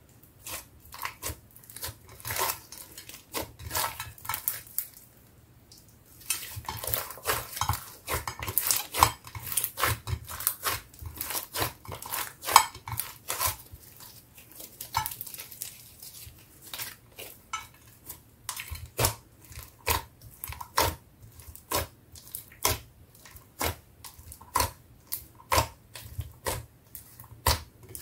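Thick pink glitter slime with foam beads being squeezed, folded and stretched by hand in a glass dish: a run of sticky, wet clicks and pops. The pops come thick and fast for several seconds after a short lull about five seconds in, then spaced out again.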